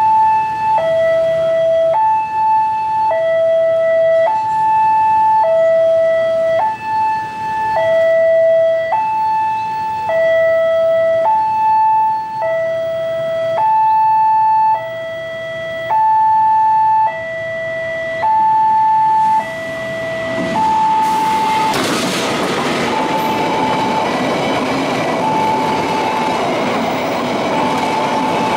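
Railway level-crossing warning alarm sounding, an electronic two-tone signal alternating high and low about once a second. About 21 seconds in, a freight train of fuel tank wagons reaches the crossing. Its rolling and wheel noise becomes the loudest sound, with the alarm still going underneath.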